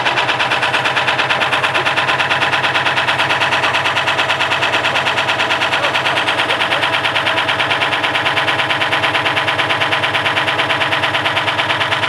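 Front-loading washing machine being run to destruction, pouring smoke: a loud, rapid, even hammering rattle over a steady mechanical hum.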